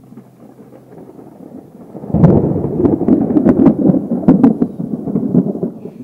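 Thunder: a faint low rumble builds, then about two seconds in a loud crack breaks into a crackling, rolling rumble that carries on for several seconds.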